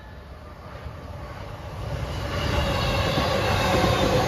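JR East E233 series 3000 electric commuter train approaching and passing close while slowing. Its running noise grows louder from about two seconds in, with a whine over the rumble of the wheels.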